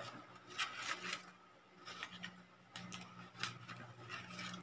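Paper template sheet rubbing and scraping against a wall as it is peeled away from a sticker wall clock's stuck-on numbers, in short scattered rustles.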